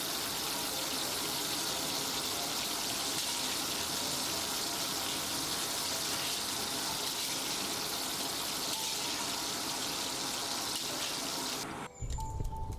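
Steady rush of running water, an even hiss that cuts off abruptly near the end.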